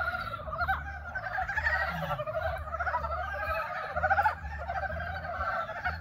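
Chorus of Dybowski's brown frogs giving their courtship (mating) calls: many rapid, pulsed croaks overlapping without pause.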